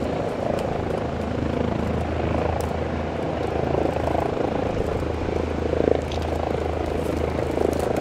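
An aircraft engine running steadily: a continuous, even drone with a low hum under it.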